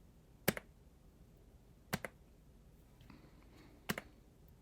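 Gaming keyboard keys pressed three times, about a second and a half apart, each a short sharp click; the second and third come as quick double clicks. The presses are function-key combinations that step the keyboard through its RGB lighting modes.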